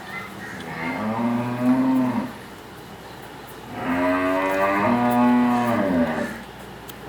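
A dairy cow mooing twice: a shorter moo, then a longer one about a second and a half later, each dropping in pitch as it ends.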